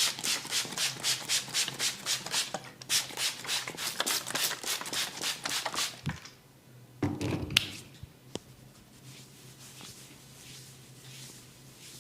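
A barber's hands rubbing during a massage in quick, even strokes, stopping about six seconds in. After a short scuffle and a sharp click, fainter strokes resume.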